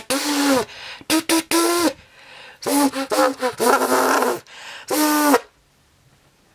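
Homemade lolly-stick harmonica, an elastic band stretched between two popsicle sticks, blown in about six short buzzy honks that bend in pitch.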